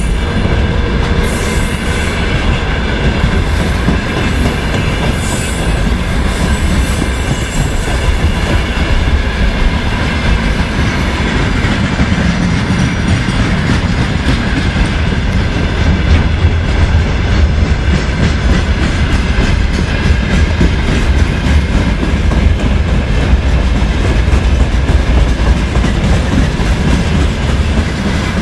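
Freight train wagons rolling past close by: a steady loud rumble of steel wheels on rail, with a continuous clatter of wheels over rail joints and faint steady ringing tones above it.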